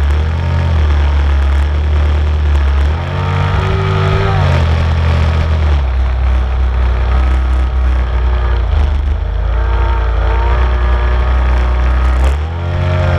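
An engine running loudly close to the microphone, its pitch rising and falling about three seconds in and again near the end.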